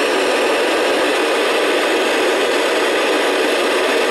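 Steady FM static hiss from a VHF radio receiver's speaker, tuned to the ISS downlink on 145.800 MHz while no voice is coming through. It is the noise of an open FM channel with a weak or absent signal, under very difficult reception conditions.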